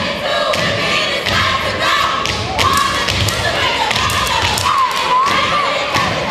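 Step team stomping and clapping in unison on a plywood floor: a run of heavy foot stomps mixed with sharp hand claps, with voices calling out behind them.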